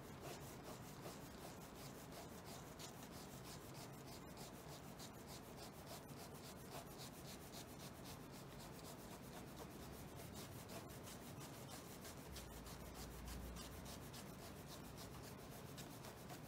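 Faint scratching of a ballpoint pen rubbing back and forth on paper in quick, continuous shading strokes.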